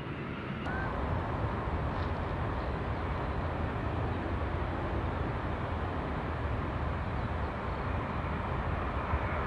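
Jet engines of a McDonnell Douglas MD-11 freighter on short final: a steady roar with a deep rumble, growing louder and fuller less than a second in.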